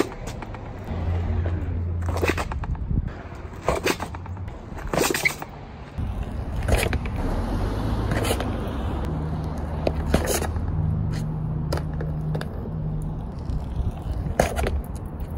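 Onewheel XR electric board stepped off again and again, its end knocking onto the concrete every second or two, with a low hum between the knocks. This is a step-off test of the Fishbones front concave pads, checking that the footpad sensor releases and does not stick.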